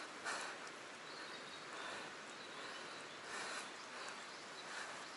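Quiet outdoor background at the water's edge: a steady faint hiss with a soft brief handling sound just after the start.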